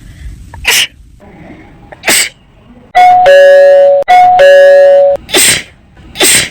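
A person sneezing four times, short sharp sneezes, broken in the middle by a two-note ding-dong doorbell chime that plays twice, high note then low, about a second each and louder than the sneezes.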